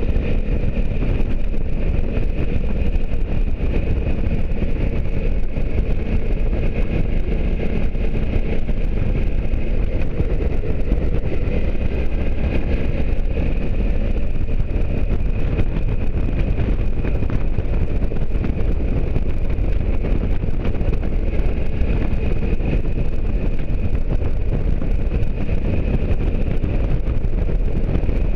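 A motorcycle cruising at a steady road speed: an even engine drone under a heavy, constant rush of wind on the microphone.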